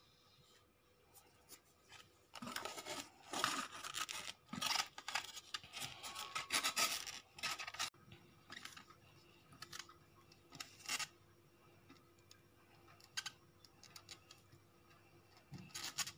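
Wooden spoon stirring sticky natto in its white foam tray: a dense run of scraping and rubbing for the first half, thinning to occasional light scrapes and clicks.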